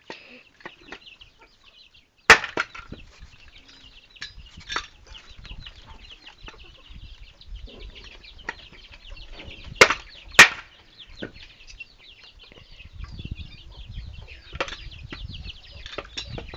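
Wood being chopped and split by hand with a blade: a few sharp wooden knocks and cracks, the two loudest close together about ten seconds in. Chickens are clucking.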